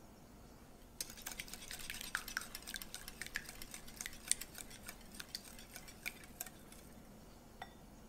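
Stainless-steel wire whisk beating eggs in a glass bowl: rapid clinking and tapping of the wires against the glass. It starts about a second in and stops a couple of seconds before the end, followed by one last light tap.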